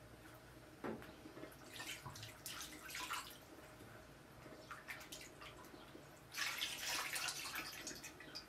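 Water splashing as a ceramic bowl is rinsed over a steel basin, in irregular splashes with a louder stretch of splashing near the end. There is a short knock a little under a second in.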